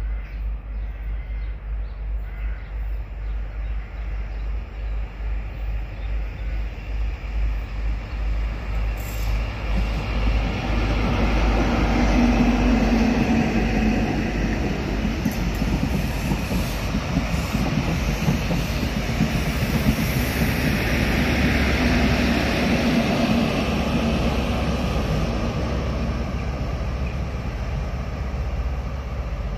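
ScotRail InterCity 125 High Speed Train with diesel power cars at each end passing close by. Its engine and wheel noise grow louder about ten seconds in and peak twice, as the front and then the rear power car go past, before easing off as the train pulls away.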